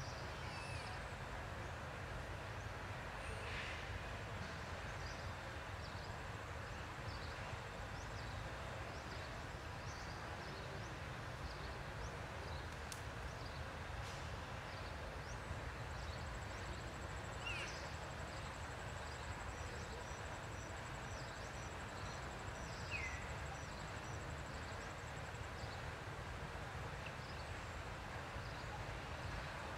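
Forest ambience: a steady low rumble and hiss with faint, scattered bird chirps, and a short run of evenly spaced high pips a little past the middle.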